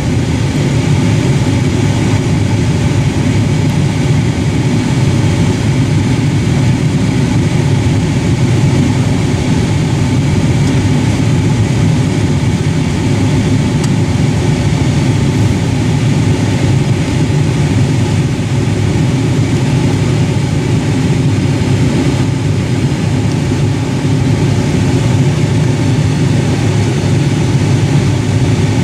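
Steady engine and road noise of a car driving, heard from inside the cabin.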